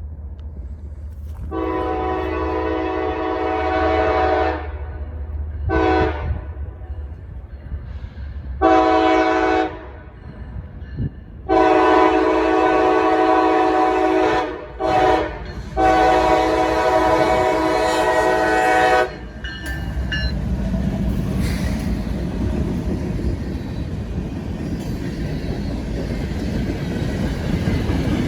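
CSX locomotive's air horn sounding a series of long and short blasts to warn a grade crossing, ending with a long blast about two-thirds of the way through. The train's steady rumble and wheel clatter follow as it passes.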